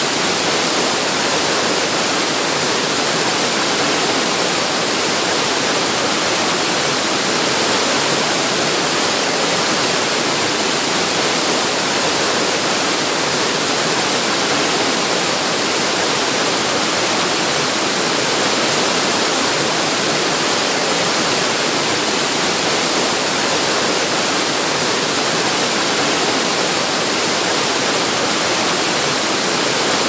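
Small waterfalls and cascades on a rocky creek, white water rushing steadily over the ledges in a loud, even hiss.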